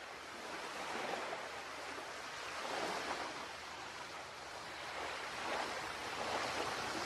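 Ocean surf breaking on a beach: a steady rush of noise that swells with each incoming wave every couple of seconds, fading in gradually.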